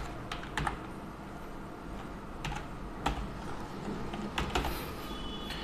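Computer keyboard being typed on: a handful of separate key clicks with pauses between them.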